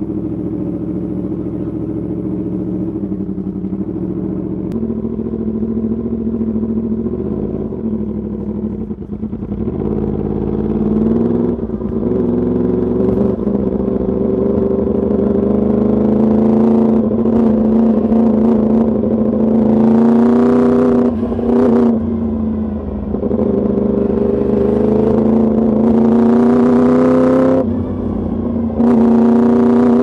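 Yamaha YZF-R1 crossplane inline-four with an Arrow Pro Race exhaust, idling steadily and then pulling away, its revs climbing in several pulls. There are short dips in the revs about twenty seconds in and a longer one near the end.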